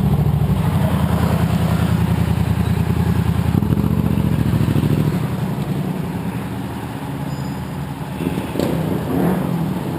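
Motorcycle engine running at low speed with a steady low pulsing rumble, louder around four seconds in and easing off about five seconds in.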